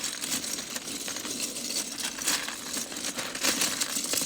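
Dense, continuous clattering and rattling of many small hard plastic pieces knocking together, with a crinkling edge. It stops abruptly at the end.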